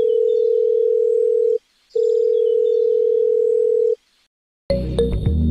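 Telephone line tone sound effect: a single steady tone held for about two seconds, broken briefly, then held for about two seconds more before cutting off. Music starts near the end.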